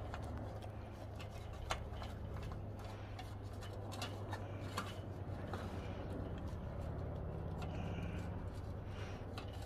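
Tibetan mastiff puppy eating from a stainless-steel bowl: irregular small clicks and crunches of food and teeth against the metal, over a steady low rumble.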